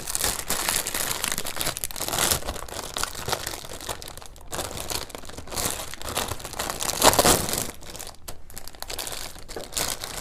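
Plastic packaging crinkling and rustling as it is handled, in uneven bursts, loudest about seven seconds in.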